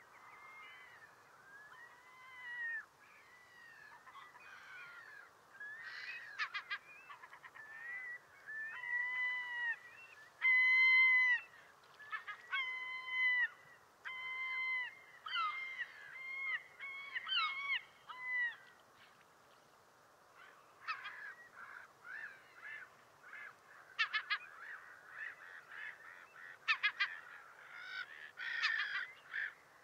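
Gulls calling repeatedly: a run of short, pitched, partly overlapping calls with brief pauses, loudest about a third of the way in. Sharper, clipped calls follow near the end.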